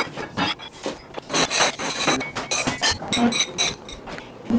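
Dishes and other hard objects clinking, knocking and scraping on a table as it is being cleared or set, with several short ringing clinks.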